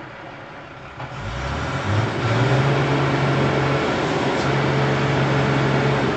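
A vehicle engine revving up about a second in and then held at high revs, steady in pitch, with a short dip in the middle.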